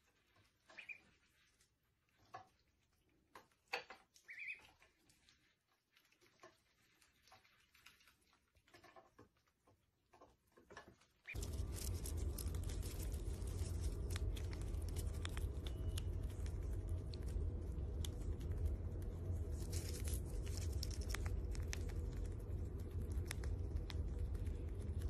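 For about eleven seconds, near silence broken by a few faint clicks and a short soft peep from a duckling. Then a steady low background hiss and hum sets in, with faint crunchy clicks as a squirrel nibbles a nut held in its paws.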